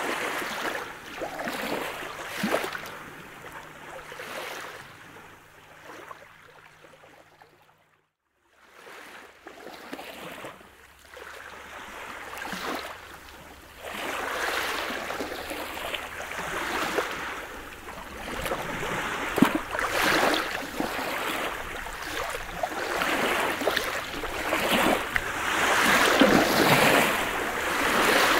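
Small, calm-sea waves lapping and washing up a pebble beach, the water hissing and crackling through the stones in uneven surges. The sound cuts out briefly about eight seconds in, then returns and grows louder in the second half.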